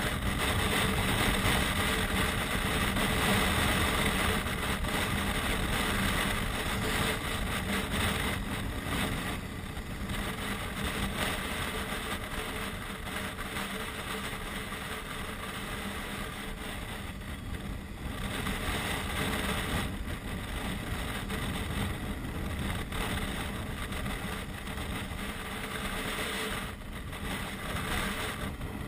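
Motorcycle under way at road speed: a steady engine hum under wind rushing over a helmet-mounted camera, a little louder for the first several seconds, then easing.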